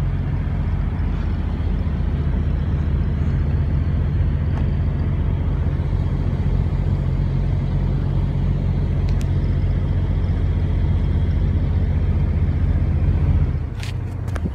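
Steady low drone of idling diesel truck engines, with a faint click about nine seconds in. The drone drops away abruptly about a second before the end.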